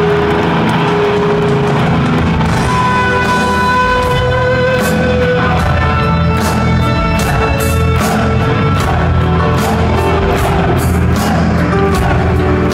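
Live heavy metal band playing: long held melody notes over bass and drums, with cymbal hits coming at a steady beat from a couple of seconds in.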